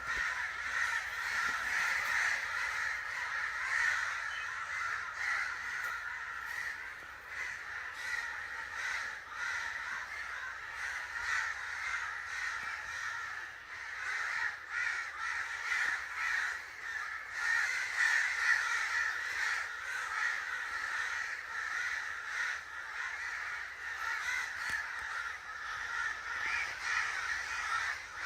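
Crows cawing over one another, many harsh caws overlapping into a continuous clamour with no pauses.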